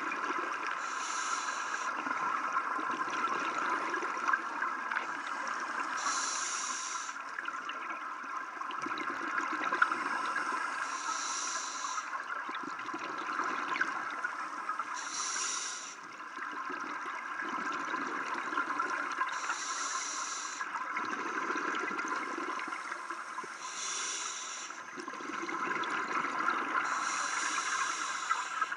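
Scuba diver breathing through a regulator, heard underwater: a short high hiss every four to five seconds alternating with the lower bubbling rumble of exhaled bubbles, over a steady underwater hum.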